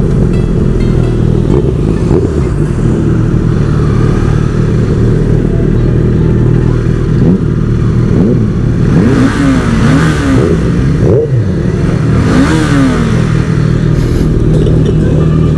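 Motorcycle engine running at road speed, heard from the rider's seat, its pitch rising and falling with the throttle partway through. Two rushes of noise from passing traffic come in the second half.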